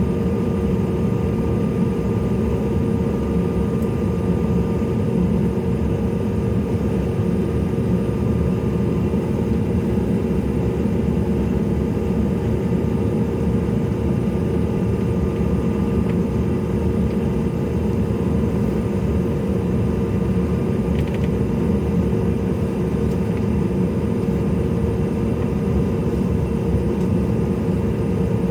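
Steady cabin noise of a CRJ-700 regional jet with its two rear-mounted GE CF34 turbofans running at low, even power, as when taxiing: a constant low rumble with a held hum over it.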